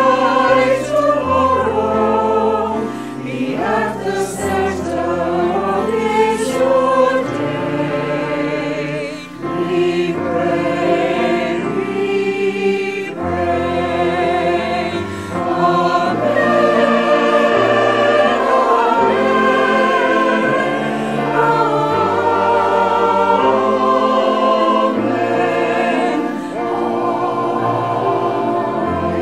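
Mixed choir of men and women singing a sacred song in parts, many separately recorded voices mixed together as a virtual choir.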